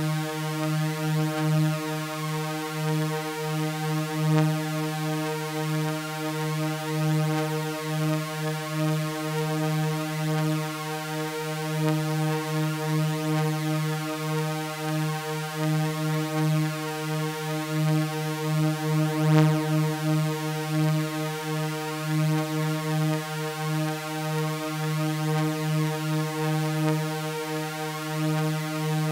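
Synthesized ambient drone built from layered sawtooth waves, holding the same low pitches steadily with a rich, buzzy stack of overtones. Its loudness wavers gently and continuously.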